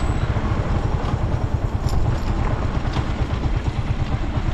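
Suzuki GZ250's single-cylinder four-stroke engine running steadily, now fed by a newly fitted aftermarket carburettor that lets it rev where before it would barely run.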